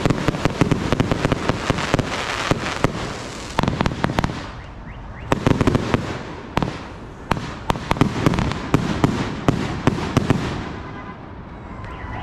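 Fireworks going off in a fast barrage of bangs and crackling. It is dense for about the first four seconds, eases briefly, then comes back in further volleys that thin out and fade near the end.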